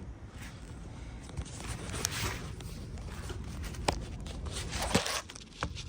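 Aerosol chain cleaner sprayed onto a motorcycle chain in a couple of short hissing bursts, with a few light clicks in between.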